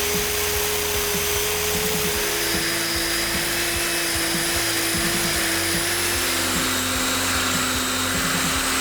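Large industrial wood chipper running and chipping timber: a dense, steady grinding noise over a machine hum that drops lower in pitch twice, as the machine takes the load of the wood.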